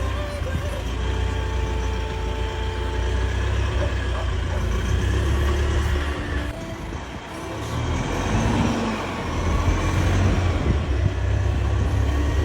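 Vehicle engine running with a steady low rumble. It drops off briefly about seven seconds in, then picks up again louder.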